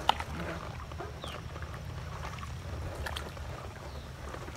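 Canoe paddles working the water during a quick turn, with one sharp knock just after the start and a few fainter clicks about three seconds in, over a steady low rumble. A bird gives a short falling chirp twice.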